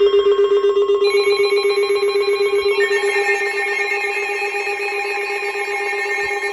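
Several mobile phones sounding emergency alert tones at once: a stack of loud, rapidly pulsing steady tones. More phones join in about one second and three seconds in.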